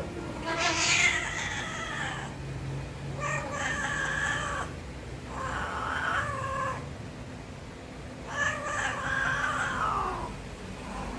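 Persian cat in heat yowling: four long, drawn-out calls of about two seconds each, with short pauses between them.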